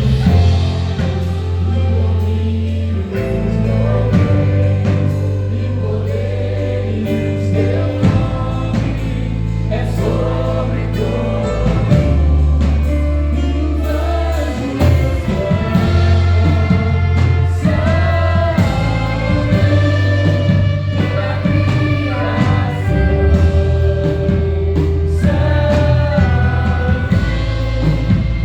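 Gospel hymn played by a church orchestra, with choir singing over held bass notes that change every few seconds.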